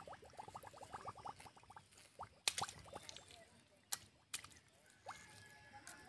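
Wet mud squelching and water dripping as hands press mud around a bamboo fish trap set in a shallow channel, with a few sharp clicks. A rapid trill of short chirps runs through the first two seconds, and a thin steady whistle comes in near the end.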